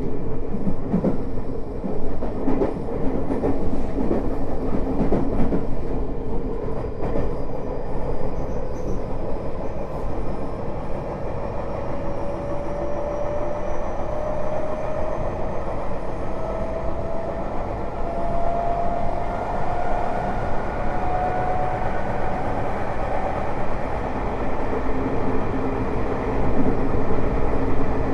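Tokyo Metro 05 series train heard from inside the car: the Mitsubishi IGBT-VVVF inverter and traction motors whine with a tone that rises steadily as the train gathers speed, over the rumble of the wheels and clicks of rail joints. The whine fades out near the end as the train stops drawing power and coasts.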